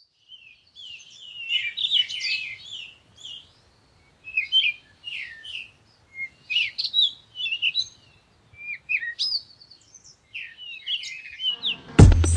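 Small birds chirping and whistling in quick, short phrases, several calls overlapping. Near the end, loud music with a heavy drum beat cuts in.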